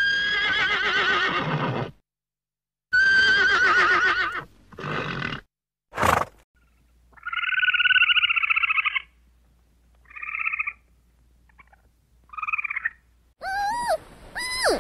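A horse whinnying twice, each a long wavering neigh, then a short call and a snort. A chattering trill follows, then two shorter ones, typical of a small striped squirrel. Near the end come several high squeaky calls that rise and fall in pitch.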